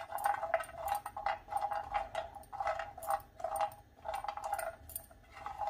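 Spatula stirring cashews around a dry non-stick frying pan as they are lightly roasted: repeated short scrapes, about two a second, with the nuts rattling and sliding across the pan.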